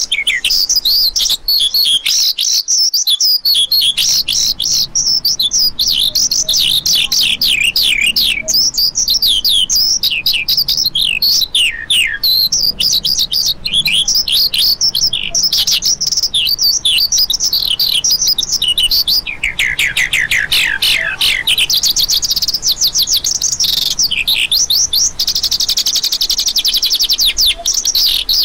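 Branjangan (Horsfield's bush lark) singing a continuous, fast run of high chirps and downward-slurred notes. About two-thirds through comes a rapid trill sweeping downward, and near the end a fast rattling trill.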